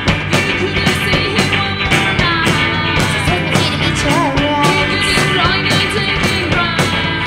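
Live rock band playing: electric guitars strumming and drums coming in with a steady beat right at the start, then a woman's voice singing the melody from a few seconds in.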